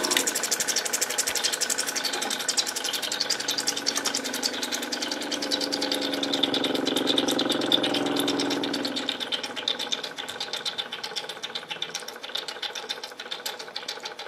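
Electric motor of a lapidary machine running, with a rapid, even ticking. A lower hum fades out about nine seconds in, and the sound gets quieter.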